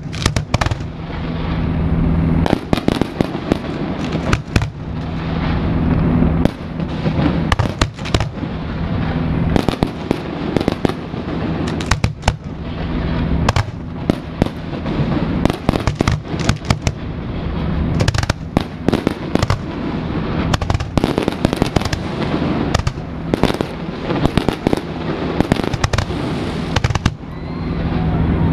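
Fireworks display: aerial shells bursting in rapid, irregular succession, sharp bangs with crackle between them.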